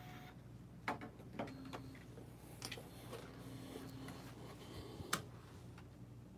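Sparse clicks and light knocks from the opened Epson L1800 printer's mechanism being handled, over a faint steady low hum; the sharpest click comes about five seconds in.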